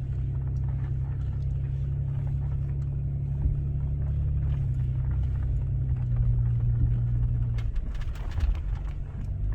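Steady low engine and road drone of a vehicle driving, heard from inside the cabin. The hum drops away a little under eight seconds in.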